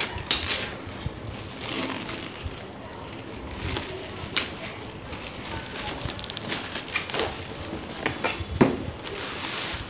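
Plastic shrink wrap crinkling and crackling as it is torn and peeled off a cardboard box, in irregular rustles with a sharper, louder one near the end.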